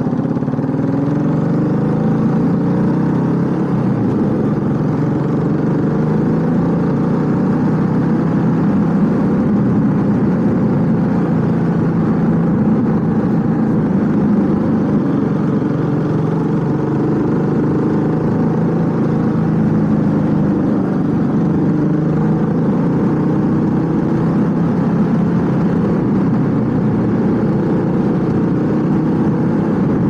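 Honda CB400SS's single-cylinder four-stroke engine running while riding, heard from the rider's seat, its pitch rising and falling gently with the throttle.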